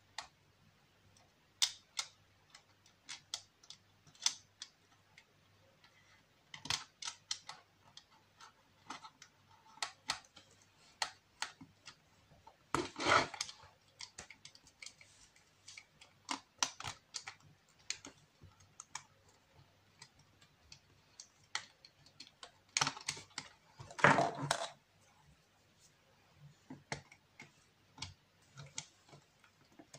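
Small clock-movement parts being handled and fitted on a resin clock face: a string of light clicks and taps, with two louder, longer bursts of handling noise about ten seconds apart.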